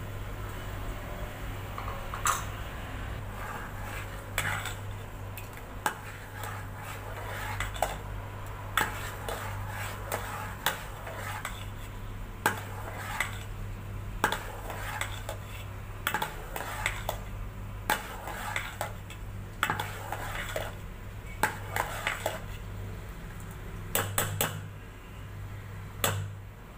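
Metal spoon clinking and scraping against a steel pot while custard mix is stirred into heating milk, with irregular knocks about every second over a steady low hum.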